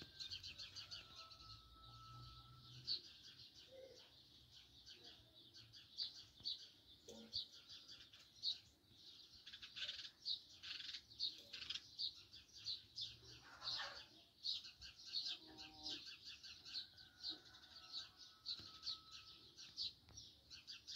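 House sparrow chirping: short, repeated chirps, several a second, keeping up without a break.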